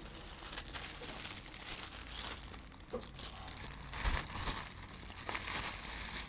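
Plastic mailer bag crinkling and rustling as it is torn open and a small item in plastic wrap is pulled out, with irregular crackles throughout.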